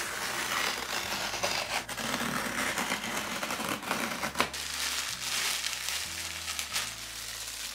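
Clear plastic packaging bag crinkling and rustling continuously as it is handled and pulled open.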